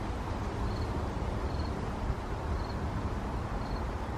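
A cricket chirping faintly, one short high chirp about once a second, over a steady low rumble.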